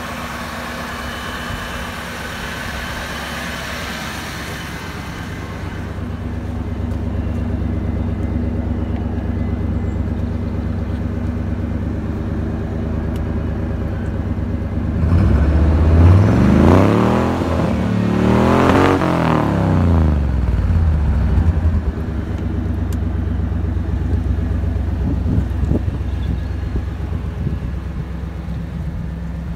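Old pickup truck's engine running after standing unused for two years. It idles steadily, is revved up and let fall back twice about halfway through, then settles back to idle.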